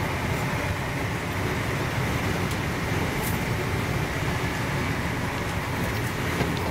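Steady low rumble of a Mark 3 passenger coach running at speed, its wheels and bogies on the track, heard from inside the carriage.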